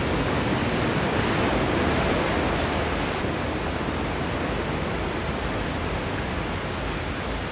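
Sea surf breaking on a sandy beach: a steady, continuous rushing wash of waves.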